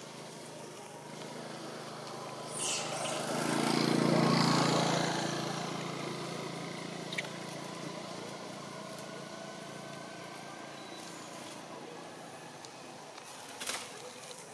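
A motor vehicle's engine passing by, growing louder to a peak about four seconds in and then slowly fading away.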